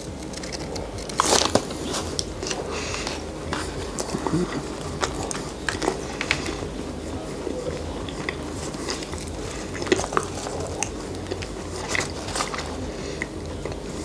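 A bite into a soft peanut butter cookie with a fudge centre, the strongest sound about a second in, then steady chewing with many small irregular mouth clicks, close on a clip-on microphone.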